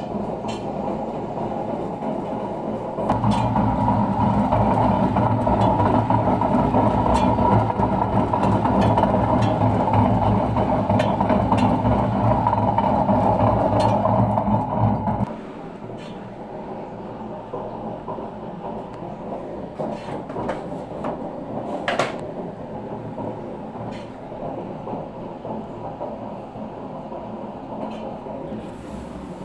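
Washing machine drum turning with a grinding rumble from extremely worn drum bearings. It grows much louder about three seconds in, drops back to a quieter rumble about halfway through, and a few clicks and one sharp knock follow.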